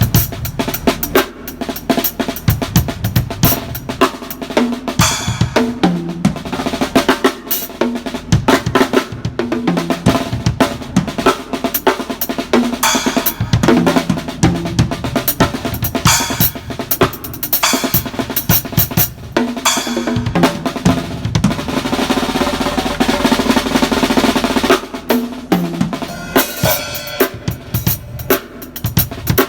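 Drum kit played with the snare drum to the fore: fast snare strokes and fills over bass drum hits, including a stretch of continuous rapid strokes about two-thirds of the way through, as the snare's sound is checked.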